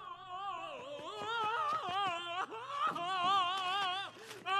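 A warbling, voice-like pitched tone with a fast, wide vibrato, breaking off briefly a few times, and a steadier, louder held tone coming in at the very end.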